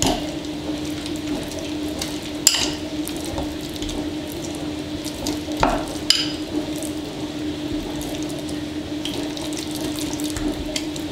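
A spoon stirring sticky, still-unset slime in a glass bowl: a steady wet crackle, with a few sharp clicks of the spoon against the glass. A steady low hum runs underneath.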